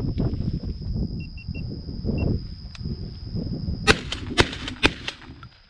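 Three shotgun shots about four seconds in, each roughly half a second after the last, over a steady low rumble.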